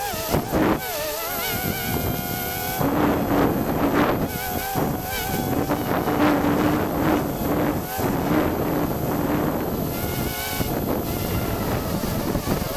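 Small quadcopter's electric motors and propellers buzzing in flight, heard from the camera mounted on the craft, the pitch wavering up and down as the throttle changes.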